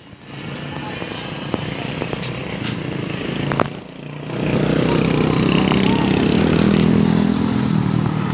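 Motorcycle traffic on a street: light street noise at first, then about four seconds in a motorcycle engine comes close and runs loud with a steady hum to the end.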